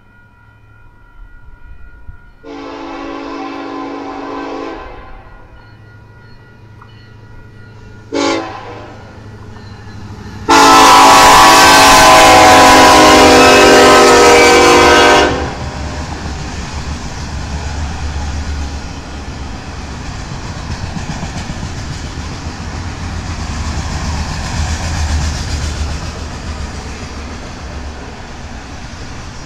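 Union Pacific diesel locomotive horn sounding a crossing warning: one long blast, a very short one, then a loud long blast as the locomotive reaches the crossing. It is followed by the steady rumble and clatter of the autorack train rolling past.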